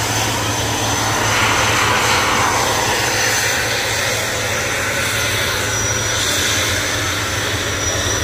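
Heavy truck diesel engines running steadily under load on a steep uphill road, with a low hum throughout. One vehicle swells louder about one to three seconds in as it passes.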